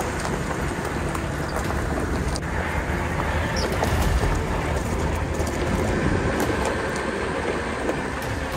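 Nissan Patrol Y60 with a BMW M57 straight-six turbodiesel swap driving along a rough off-road track: a steady low engine and tyre rumble with a few sharp clicks, one about two and a half seconds in.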